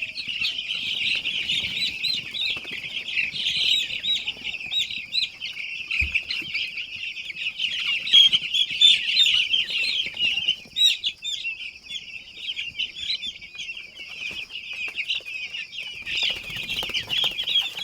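A crowded flock of broiler chickens peeping continuously, with many short high calls overlapping.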